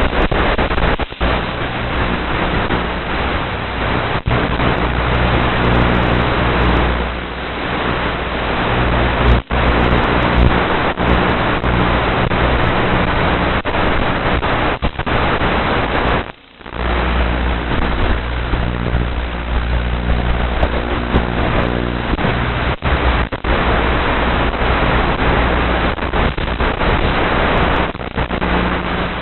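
Electric motors of an FPV model aircraft running at speed, a steady hum under loud wind rush on its onboard microphone, with brief dropouts in the sound, the longest about halfway through.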